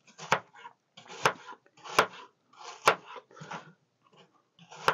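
A chef's knife dicing peeled apple on a plastic cutting board: about five sharp knocks of the blade on the board, roughly one a second, each with a short crunch as the blade cuts through the apple.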